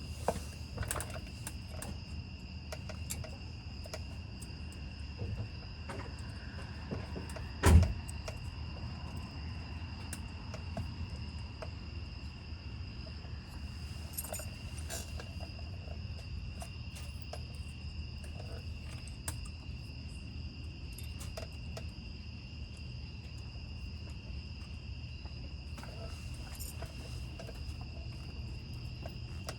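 Crickets chirring steadily, with scattered small clicks and taps as brake pad clips and tools are handled, and one loud knock about eight seconds in.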